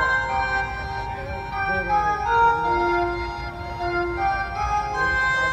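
Music played over a 4acoustic line-array PA system with flown and ground-stacked subwoofers: sustained organ-like keyboard notes and melody over steady bass.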